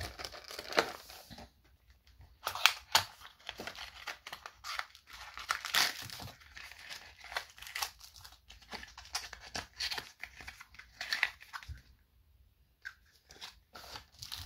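Small plastic accessory bags and cardboard packaging being handled and opened: irregular crinkling and tearing of thin plastic with light knocks, pausing briefly near the end.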